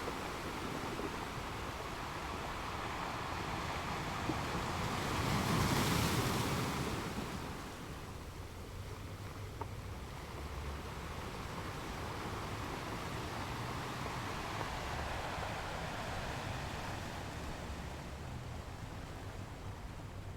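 Ocean waves washing on a shore, with one wave swelling and breaking loudest about six seconds in, then a softer steady wash.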